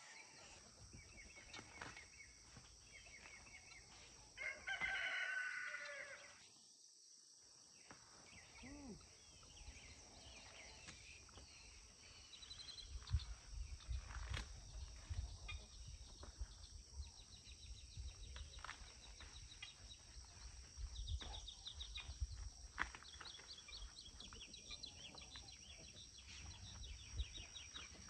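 A rooster crows once, about five seconds in, over a steady high drone of insects. Throughout, there is rustling and cracking of corn stalks and leaves as ears are pulled by hand, busiest in the second half, with quick bird chirps.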